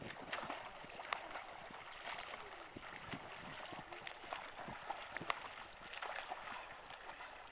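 Swimmers splashing as they kick and stroke through pool water, in short irregular splashes, with faint voices in the background.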